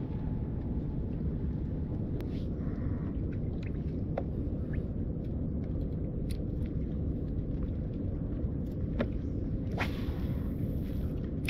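Steady low rumble of wind buffeting the microphone, with a few faint clicks scattered through.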